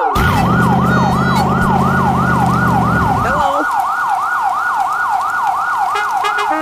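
Emergency-vehicle siren wailing in a fast yelp, rising and falling a little over three times a second. Under it a deep engine-like rumble runs and stops about halfway through.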